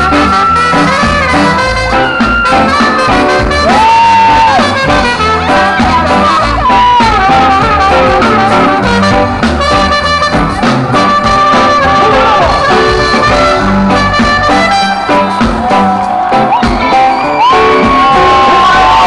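Live ska band playing loud, with a brass section carrying the melody over drums and bass, and a long held note near the end.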